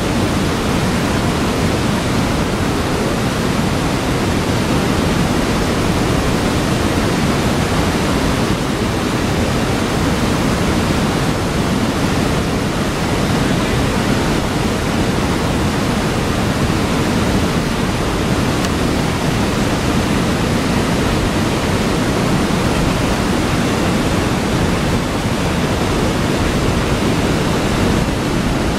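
Water rushing steadily through a dam spillway's stop-log bay, a constant, even roar of churning flow.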